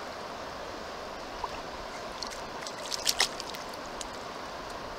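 Thompson River current rushing steadily past. A few brief sharp sounds break through around the middle, the loudest two close together about three seconds in.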